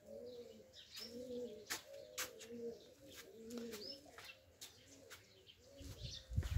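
A dove cooing faintly outdoors in a long run of short, arched coos, two or three a second. A few small birds chirp faintly, there are scattered sharp clicks, and a low thump comes at the very end.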